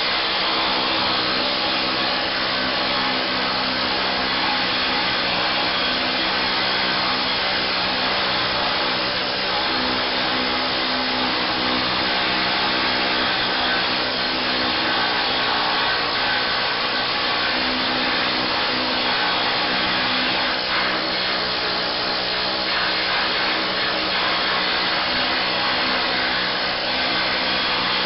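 Air-powered needle scaler running steadily, its needles hammering old undercoating off the steel floor pan of a 1966 VW Beetle: a pretty loud, continuous buzzing rattle.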